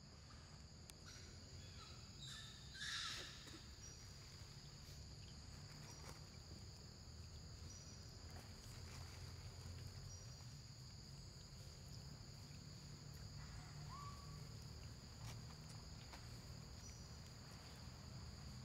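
Faint, steady high-pitched drone and chirping of forest insects, with a low background rumble. A short brighter call stands out about three seconds in, and a brief squeak comes around fourteen seconds.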